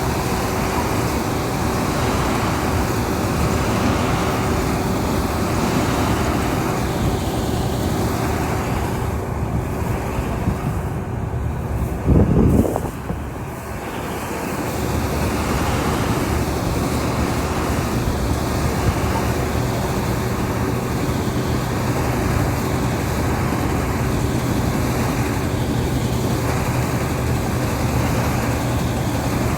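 An engine running steadily under a continuous noise, with a brief louder sound about twelve seconds in.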